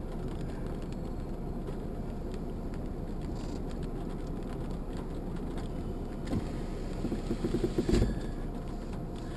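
Steady low rumble inside a vehicle cabin with the engine running, with a few knocks and one louder thump about eight seconds in.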